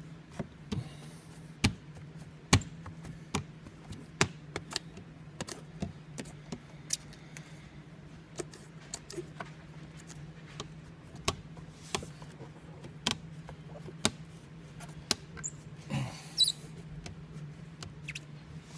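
A hard card squeegee working window tint film along the bottom edge of a windshield from inside the car: irregular sharp clicks and taps of the card against the glass, with a short scrape about two thirds of the way through, over a steady low hum.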